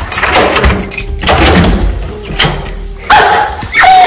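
Clicks and rattles of a door being unlocked and opened. About three seconds in comes a loud excited scream from a woman, falling in pitch near the end.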